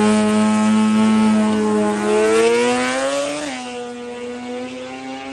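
Two-rotor Mazda 13B rotary race engine of a drag-racing RX7 FD at high revs. It holds a steady pitch, then climbs as the car accelerates away down the strip, drops sharply once about three and a half seconds in at a gear change, and climbs again while fading into the distance.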